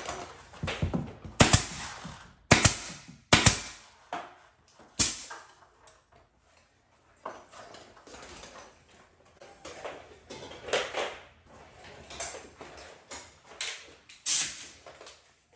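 Nail gun firing nails into crown molding, four sharp shots within the first five seconds. Quieter knocks and handling noise follow, with one more sharp crack near the end.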